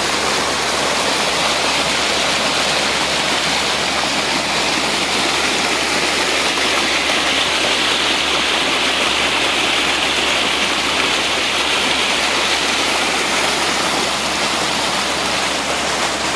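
Steady, loud rushing and splashing of a 12-inch stream of pumped water gushing out of a corrugated pipe outlet and tumbling into the flooded impoundment.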